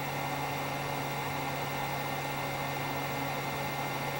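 Heat gun on its low setting blowing a steady stream of hot air with a faint hum underneath, heating a surface-mount IC on a circuit board until its solder melts so the chip can be lifted off.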